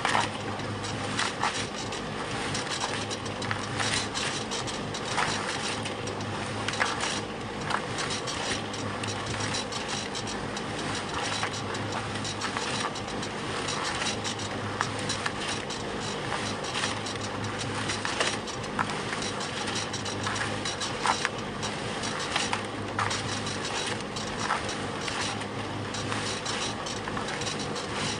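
Concrete mixer running steadily, its motor hum swelling and easing every few seconds, with scattered knocks and rattles from the turning drum.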